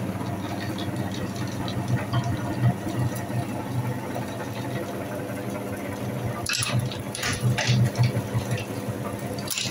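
Metal meat grinder running with a steady hum as it grinds wax crayons. A quick series of crunching cracks comes about six and a half to eight seconds in, as more crayons are fed into the hopper.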